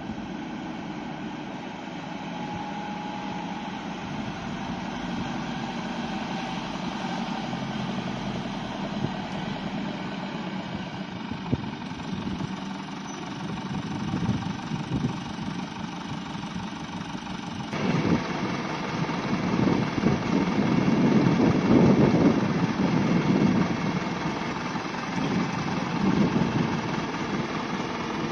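Toyota truck's engine running steadily at idle. About two-thirds of the way through, the sound changes abruptly and then rises and falls in louder swells for several seconds.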